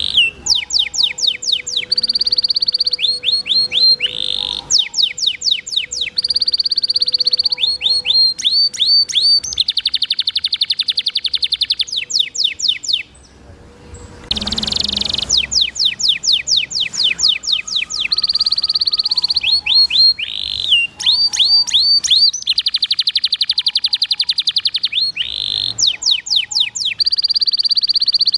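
Domestic canary singing a long, varied song: fast rolled trills alternate with quick runs of falling whistled sweeps, phrase after phrase. The song breaks off briefly about halfway through, where a short rushing noise sounds.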